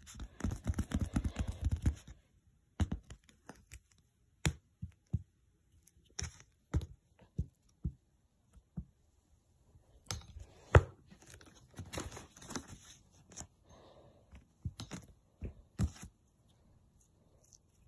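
Pink slime being pressed and pulled on a paper plate with fingers and a metal spoon: a quick run of sticky clicks for the first two seconds, then scattered clicks and taps, busiest from about ten to thirteen seconds in, with one loud knock near eleven seconds.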